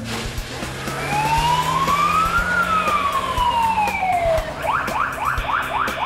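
Police car siren: one slow wail rising and falling in pitch, then switching to a fast yelp of about four sweeps a second.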